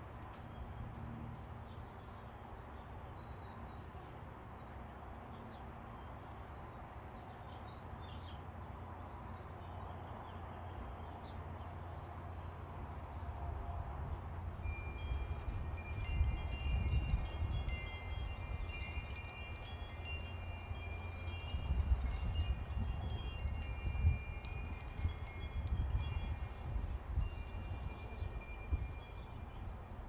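Two small metal tube wind chimes ringing, several overlapping high tones struck again and again, joining in about halfway through and continuing to the end, over a low rumble that swells in gusts.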